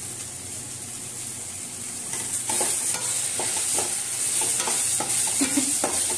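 Onion, tomato and green chilli masala sizzling in oil in a stainless steel kadai. From about two seconds in, a metal spatula stirs it, scraping and knocking against the pan several times a second, and the sizzle grows louder.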